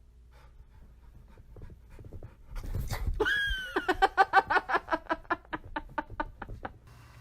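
An animal's voice: a drawn-out call with a short pitch glide, then a quick string of short pitched huffs, about five a second, that fades away.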